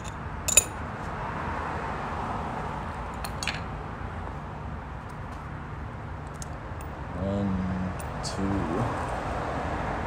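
Small metal parts clinking and clicking against a concrete driveway as they are picked up and set down, with one sharp click about half a second in and a few lighter clicks after.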